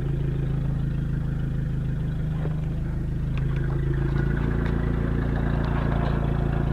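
Turbocharged Fiat Palio 1.0 Fire four-cylinder engine running steadily, heard from inside the cabin, its note shifting about four seconds in.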